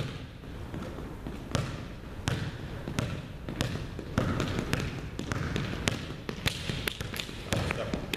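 Quick footsteps of sneakers on a hardwood gym floor during an agility-ladder and mini-hurdle footwork drill: an irregular patter of sharp foot strikes that starts about a second and a half in and grows busier.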